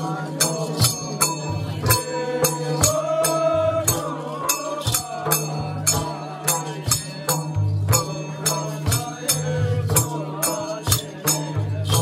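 Nepali folk music: a wavering sung or played melody over a steady beat of sharp percussion strikes, about two to three a second.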